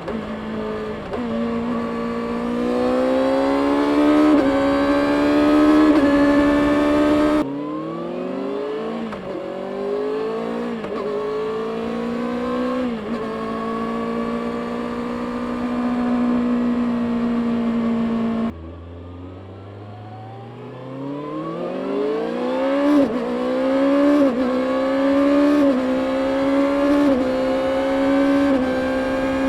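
Stock 2024 Kawasaki Ninja ZX-6R's 636 cc inline-four engine pulling hard through the gears, its revs climbing and dipping briefly at each upshift. The sound changes abruptly twice. After the second change it starts quieter from low revs, then pulls away and shifts up again several times.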